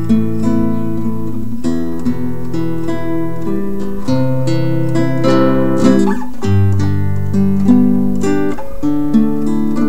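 Acoustic guitar music, with notes plucked and strummed in a continuous flowing line.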